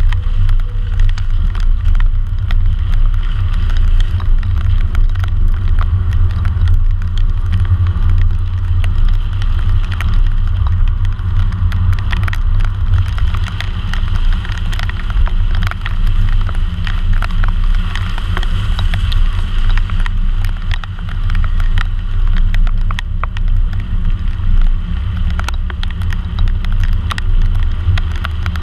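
A car driving on a rain-soaked road, heard from a camera mounted outside beside the rear wheel: a heavy, steady low rumble of wind and road noise, with the hiss of tyre spray and many small sharp ticks of water hitting the camera.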